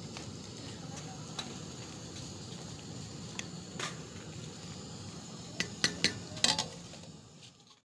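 A spatula stirring a steel pot of boiling rice, knocking against the pot now and then with sharp clicks, with a quick run of louder knocks near the end, over a steady hiss.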